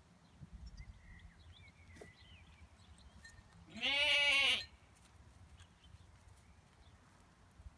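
A week-old Ouessant lamb bleating once, about four seconds in: a single wavering call of under a second that rises and falls in pitch.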